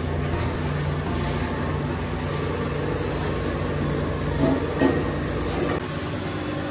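Steam rushing steadily into a wooden steamer box steaming mugwort for kusa dango, over a low steady hum. Two short wooden knocks come about four and a half seconds in as the steamer is handled.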